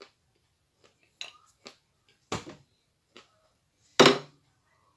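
Crisp crunches of a hard white piece of edible chalk being bitten and chewed, a few sharp cracks spread over the first half. A louder knock follows about four seconds in.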